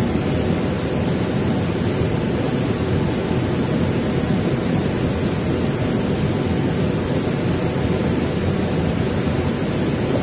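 Fast-flowing mountain river rushing steadily, a deep even roar of water with no breaks.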